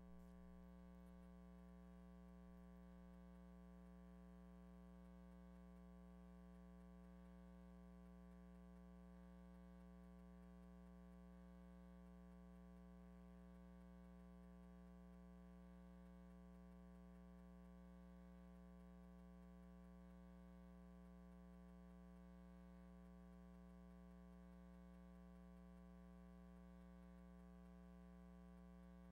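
Near silence with a faint, steady electrical mains hum: a low buzz with a stack of overtones that does not change.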